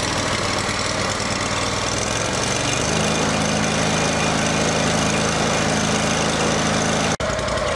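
Lawn tractor's V-twin engine running just after start-up. About three seconds in it settles into a steady, even note, and there is a brief break in the sound near the end.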